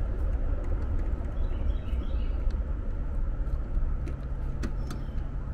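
Steady low rumble with a few light clicks as push-on wire terminals are pulled off an HVAC run capacitor with pliers. A faint steady hum joins about three seconds in.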